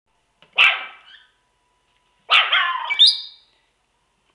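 Chihuahua puppy giving two sharp, high-pitched barks about two seconds apart, the second drawn out and ending in a shrill rising squeal.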